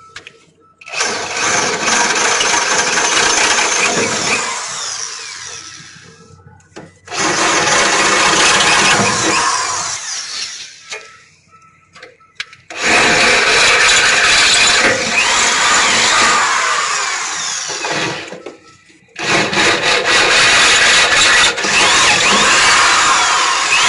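Variable-speed electric drill boring holes through the steel of a battery box. It runs in four long spells of several seconds each, with short pauses between.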